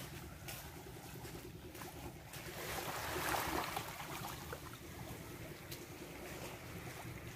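Small waves lapping and washing on a sandy, rocky shore, one wash swelling and fading about halfway through, over a low steady rumble.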